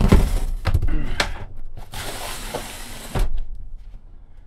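A heavy 12 V lithium (LiFePO4) battery in a plastic case being set down on a bus floor and shoved into place: a few knocks, a scraping slide of about a second, and a last knock, then it goes quieter.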